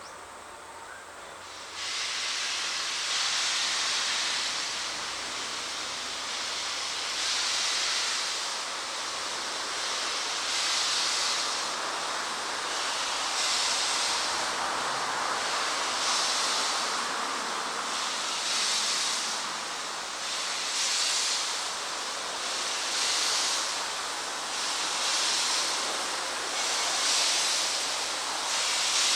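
Steam locomotive C57 180 starting away: a loud hiss of steam comes in about two seconds in, with slow, regular exhaust chuffs that gradually quicken as the locomotive gathers speed. The tail of a whistle note dies away at the very start.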